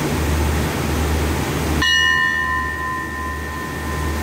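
A bell struck once about two seconds in, ringing on with a slow fade. The steady low hum of the stopped passenger train runs underneath.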